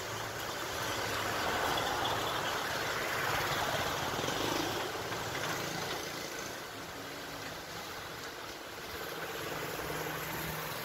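Street traffic: cars and other vehicles running and passing by on the road, a steady wash of engine and tyre noise that swells a little a few seconds in.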